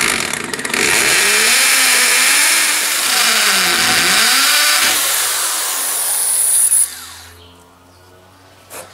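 Corded electric drill boring into a rendered masonry wall: a loud, steady drilling noise with the motor's pitch wavering under load. It stops about seven seconds in.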